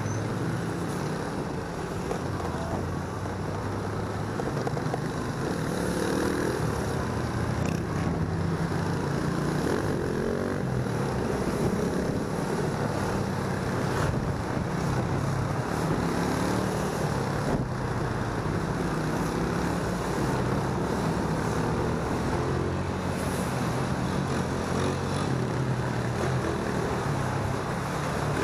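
Riding a motorcycle in slow city traffic: a continuous engine hum whose pitch rises and falls as the speed changes, over road and wind noise, with other vehicles close by.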